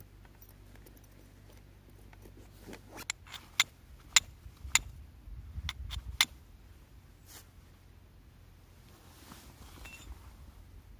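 A quick run of sharp clicks and clinks from hard objects being handled, about eight strong ones over some three seconds in the middle, with a low rumble under them.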